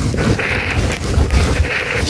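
White-eye nestlings begging as a parent feeds them: two raspy bursts of about half a second each, over a loud low rumble with knocks.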